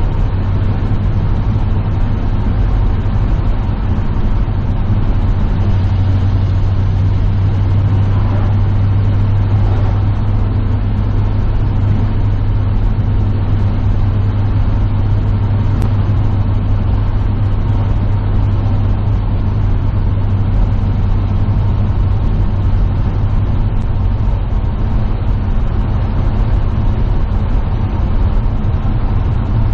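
Vintage pickup truck's engine running steadily while driving, heard from inside the cab, with a strong, even low hum and road noise.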